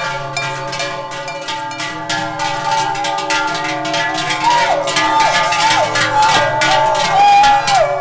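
Many large cowbells clanging and ringing together as a herd of cows and goats walks past, a dense jangle of overlapping strikes. About halfway through, a high wavering call with leaps in pitch rises over the bells.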